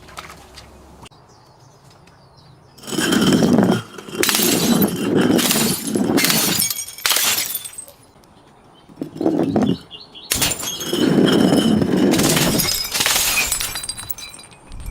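Glass being smashed and crushed in a series of loud crunching bursts, each about a second long, with shards tinkling. The bursts start about three seconds in and pause briefly around two-thirds of the way through.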